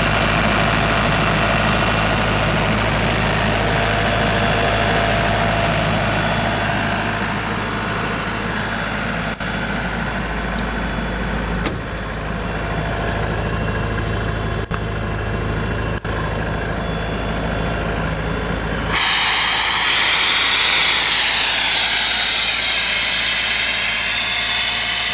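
Sullair 185 CFM portable air compressor running steadily with a low engine rumble; about three-quarters of the way through, a loud rush of escaping compressed air starts suddenly, with a falling whistle in it, and the engine rumble drops away.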